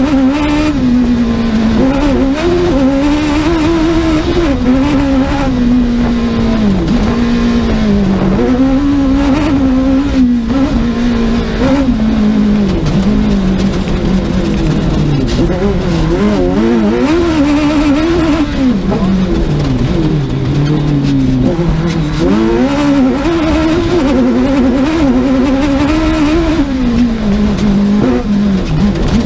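Suzuki rally car's engine driven hard on a rally stage. The revs climb and drop sharply again and again through gear changes and braking, and it runs loudly without a break.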